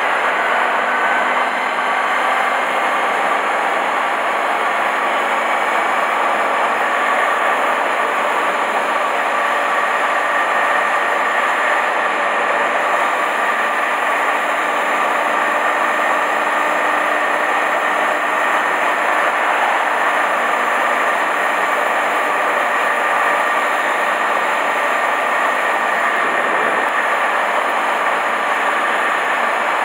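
Honda Hornet 250 motorcycle riding at a steady speed, picked up by a bike-mounted camera: the engine's note holds nearly constant under a heavy rush of wind noise.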